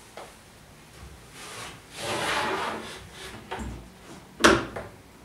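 A wooden panel scraping against a wooden bench frame for about a second, then one sharp knock as it comes to rest.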